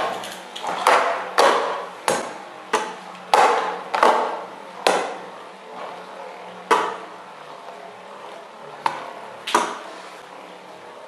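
Beyblade Diablo Nemesis metal spinning top clacking against the wall of a plastic stadium as it spins: a run of sharp knocks, one every half second or so at first, then only a few more, spaced further apart, in the second half.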